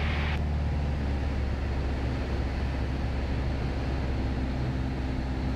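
Steady drone of a Piper PA-28 Cherokee Warrior's four-cylinder Lycoming engine and fixed-pitch propeller, heard inside the cockpit in flight. A higher hiss drops away about half a second in.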